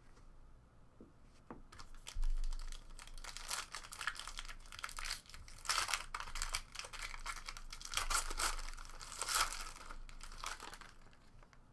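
Silver foil trading-card pack wrapper being torn open and crinkled by hand, starting about a second and a half in.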